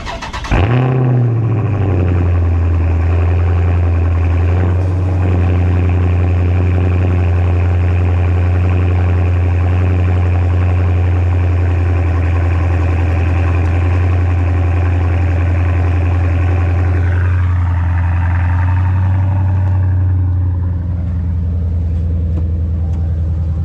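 2018 Dodge Charger R/T Scat Pack's 6.4-litre 392 HEMI V8 cold-started on fresh oil after an oil change. There is a brief crank, then the engine catches with a short flare and settles into a steady, loud high cold idle, heard from behind at the exhaust tips. About twenty seconds in, the idle eases a little lower.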